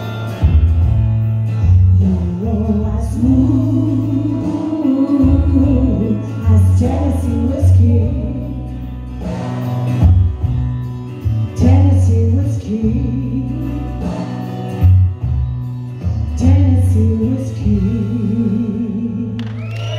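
A woman singing a country song into a microphone over a steady bass and guitar accompaniment, amplified through a PA system.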